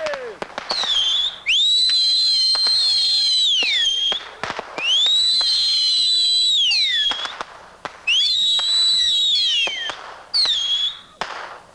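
Whistling fireworks going off in a run of high shrieking whistles. Each rises quickly, holds for up to two seconds, then falls away, with sharp pops scattered between them. They die away near the end.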